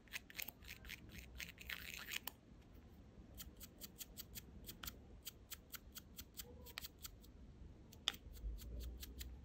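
Metal tip of an earbud cleaning pen scraping at an AirPod's speaker mesh. It makes faint, quick scratchy ticks, about three a second, and they come thicker with a rasp in the first two seconds.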